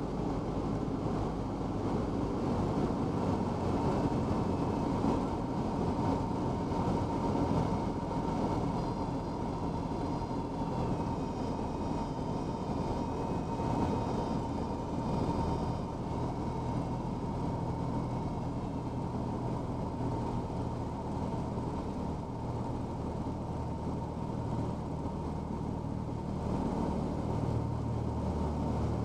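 Cessna 172's piston engine and propeller droning steadily, heard inside the cabin with airflow noise, on approach to landing. The low engine note grows stronger near the end as the aircraft reaches the runway.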